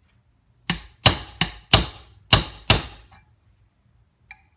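Six quick hammer blows on metal, each ringing briefly, driving a chisel in behind a bearing on a motorcycle crankshaft to work it off.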